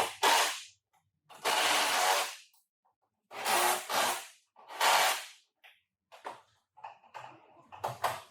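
A shop tool running in about five short bursts of noise, each under a second long, with brief pauses between, followed by a few lighter clicks near the end.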